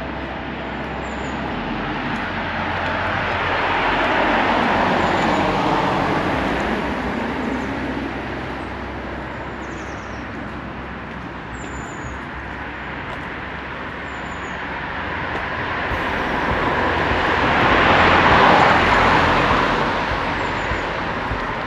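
Two cars passing by on the street one after the other, their tyre and engine noise swelling and fading away, the first peaking about five seconds in and the second louder one near the end.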